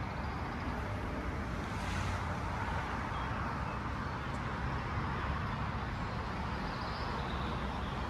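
Steady road traffic from a nearby street, a hiss of passing cars that swells a little about two seconds in, with a few faint bird chirps above it.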